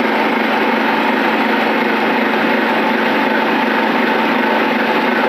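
Dry cement mortar spraying machine running steadily, a loud, even mechanical drone with a constant hum.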